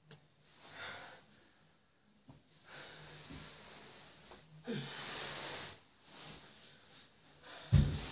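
A teenage boy's heavy, rasping breaths and gasps, several in a row, with a sharper, louder gasp near the end: acted, exaggerated dying breaths.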